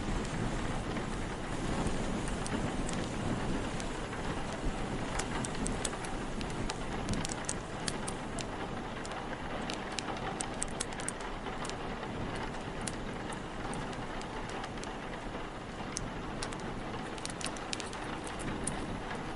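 Steady rain with a low rumble underneath, and sharp crackles from a wood fire scattered through it, coming thicker from about a quarter of the way in.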